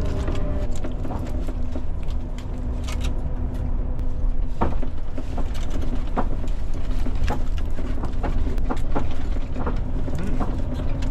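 Kimbap's wrapping being opened by hand, many small crinkles and crackles over the steady low rumble of a bus in motion.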